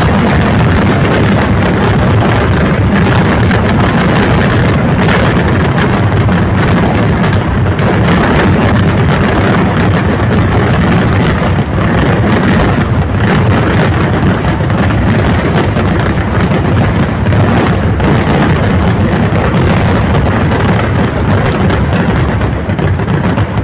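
A continuous barrage of firecrackers in a Kerala vedikettu fireworks display, bursting so fast that they merge into one loud, unbroken rumbling crackle.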